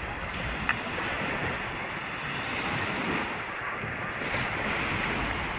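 Small waves washing on a lake shore, with wind buffeting the microphone, and one short click about a second in.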